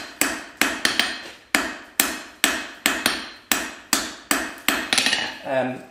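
Hand hammer striking a hot steel bar on an anvil in steady, even blows, about two a second, each with a short metallic ring. These are light finishing blows that smooth out hammer marks and leave small facets on the bar, the finishing stage of forging a punch. A brief bit of voice comes in near the end.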